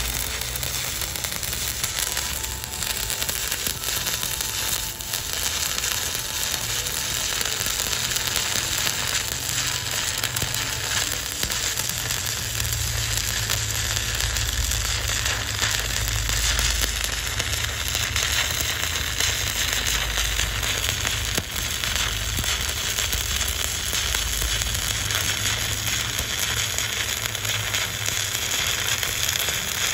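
Stick-welding arc burning steadily and unbroken as a coated electrode runs a bead along steel plate, powered by a Volt 200 A 2-in-1 TIG/stick inverter welder.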